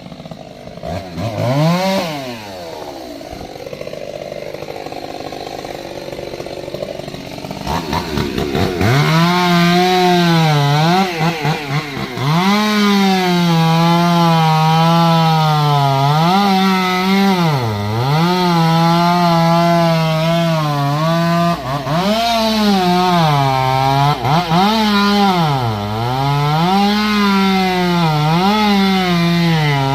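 Chainsaw running quietly for the first several seconds, with one brief rev about two seconds in. From about nine seconds it runs loud at high revs, the pitch sagging and recovering again and again as it cuts into the wood.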